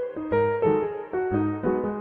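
Background piano music, a melody of struck notes over chords, a few notes a second.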